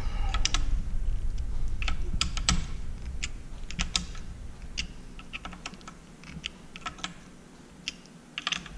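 Irregular sharp small metal clicks and ticks of a hex driver working the cap screws of a scope's rings, snugging them down with a little more torque. The clicks come several a second at first and thin out in the second half.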